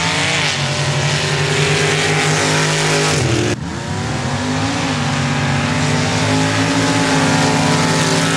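Off-road race vehicle engine running loud at high revs with a steady pitch. Just over three seconds in the revs fall away, the sound cuts abruptly to another engine, and its revs dip and climb back before settling.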